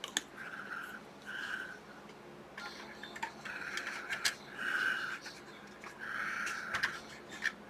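Light clicks and taps from small plastic model-kit parts being handled and fitted, with soft breathing that has a faint whistle to it coming and going every second or so.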